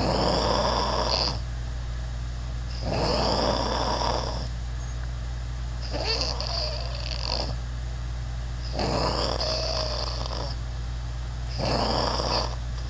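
A person snoring: five snores, each a second or so long, coming about every three seconds, over a steady low hum.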